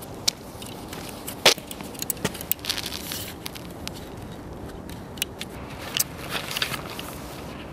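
Footsteps in sneakers crunching on gritty bitumen roofing as a person walks up close, heard as irregular sharp crunches and clicks. Near the end there are handling knocks as the camera is lifted.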